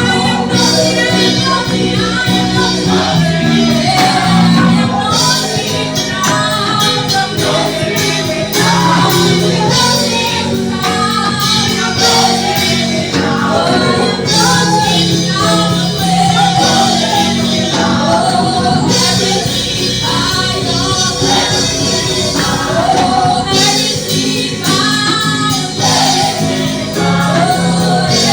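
Gospel choir singing over a full band accompaniment with steady percussion.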